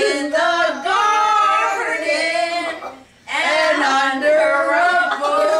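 Several people singing together, a woman's and a child's voices among them, in two long held phrases with a short break about three seconds in.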